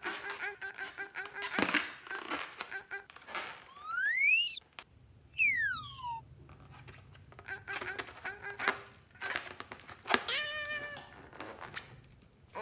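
Cartoon sound effects: squeaky pitched tones come and go, and in the middle a slide-whistle tone glides up and then back down.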